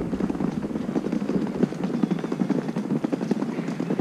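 Rolling suitcase wheels rattling fast and steadily over a brick-paved path.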